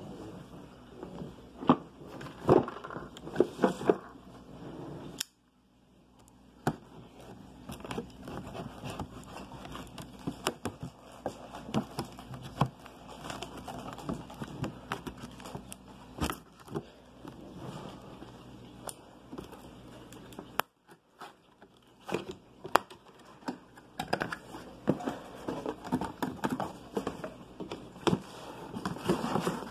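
Cardboard box being handled and opened by hand: rustling and scraping of cardboard flaps with scattered taps and knocks. The sound cuts out briefly twice.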